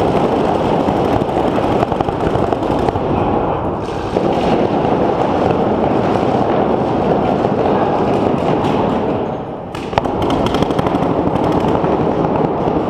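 Many paintball markers firing rapid volleys at once, a dense continuous crackle of shots. The firing eases briefly near the ten-second mark, then picks up again.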